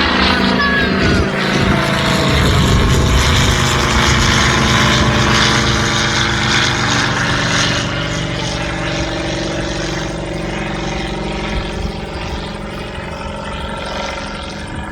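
Rotec R2800 seven-cylinder radial engine and propeller of a Kitfox light aircraft running, its pitch dropping in the first couple of seconds, then the sound slowly fading over the last few seconds.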